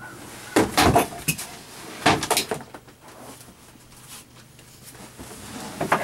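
Upholstered foam cushions being pulled off an RV dinette bench and handled: a cluster of dull knocks and rustling about a second in, another around two seconds in, then quieter shuffling with a knock near the end.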